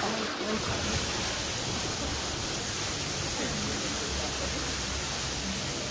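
Steady hiss of water falling over a small rock garden waterfall.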